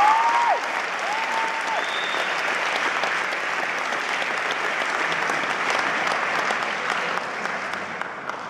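Audience applauding, with a few voices whooping, as the last held note of an all-female a cappella group ends about half a second in. The applause thins out near the end.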